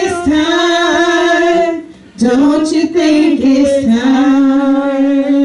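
A woman's solo voice singing into a microphone, holding a long note, pausing briefly about two seconds in, then sustaining a long, lower note.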